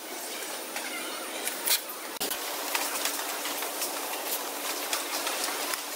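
Automated packaging machine running: a steady mechanical hiss with frequent sharp clicks and clacks from its pneumatic pick-and-place head and conveyor. About two seconds in a steady low hum joins.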